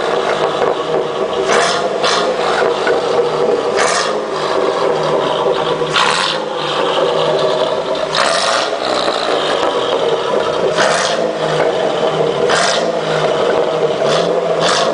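Chevrolet Blazer's 4.3-litre V6 engine running steadily at held, raised revs, a loud rasping drone, with short rough surges of noise every two seconds or so.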